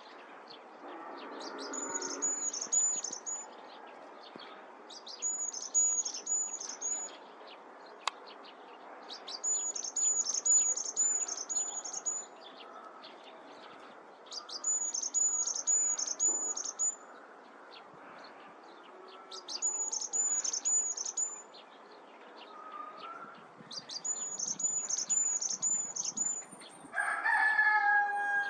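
Varied tit singing: a short, high, thin phrase of four to six repeated notes, given six times about every four seconds. Near the end comes a louder, lower call of several falling notes.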